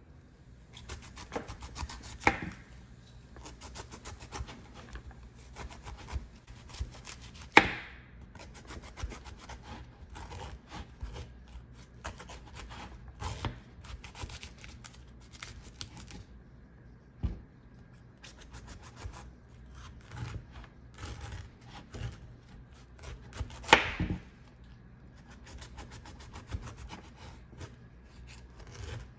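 Kitchen knife cutting a whole tender jackfruit into rounds on a wooden cutting board: repeated short scraping cuts through the knobbly rind and taps of the blade on the board, with a few sharp, louder knocks.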